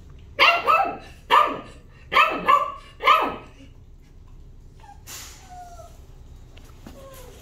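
A dog barking about five times in quick succession over some three seconds, loud and sharp, in a shelter kennel ward.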